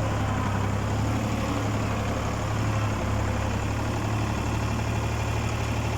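Ford 4000 tractor engine running steadily, a deep, even drone.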